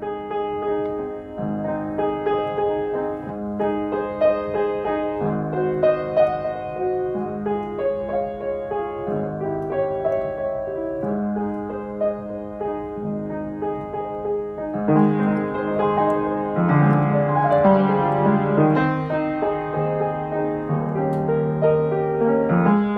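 Solo piano playing slow, gentle chords.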